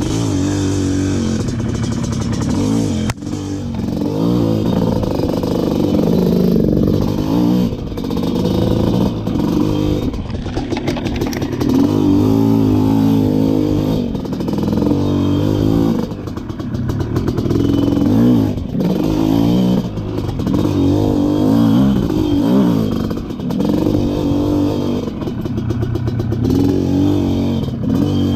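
Dirt bike engine revving up and down over and over as it is ridden, with a few sharp knocks along the way.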